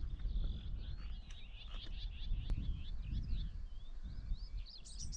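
Songbirds singing: many short chirps and warbling trills that overlap throughout. Wind rumbles on the microphone underneath.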